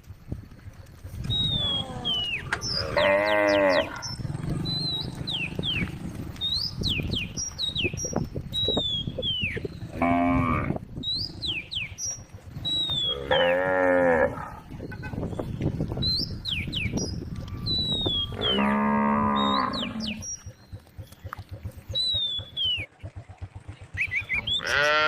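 Cows mooing, with long calls coming several seconds apart, about four in all and another starting at the end. Short high chirps are heard between the moos.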